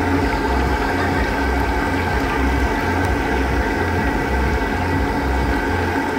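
Chicken pieces deep-frying in a large wok of hot oil, the oil bubbling and sizzling steadily. A low hum pulses underneath.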